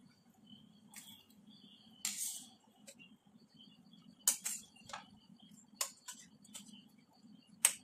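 Boiled okra and its cooking water tipped from a pan into a stainless-steel mesh strainer: a short splash about two seconds in, then a few light clinks and taps of the pan and a plastic spatula against the strainer, over a faint steady hum.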